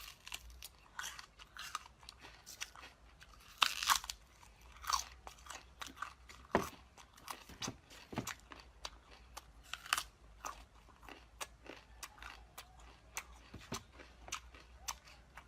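Close-miked crunching and chewing of crisp food, with many sharp crunches at an uneven pace.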